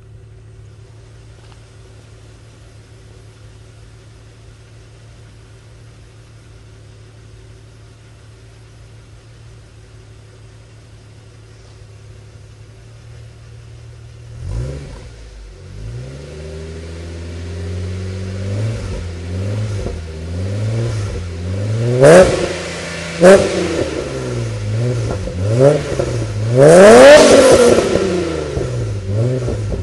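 Holden Commodore VX's 3.8-litre Ecotec V6 through Pacemaker headers and a 2.5-inch high-flow sports exhaust, idling steadily, then revved from about halfway: repeated throttle blips rising and falling in pitch, two short sharp ones close together, and one longer, higher rev near the end, the loudest.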